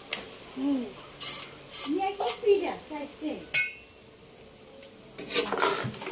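Metal strainer and spatula scraping and clinking against a non-stick pan as drained instant noodles are tipped into curry broth and stirred. Short squeaky scrapes and a few sharp clinks, the sharpest about three and a half seconds in.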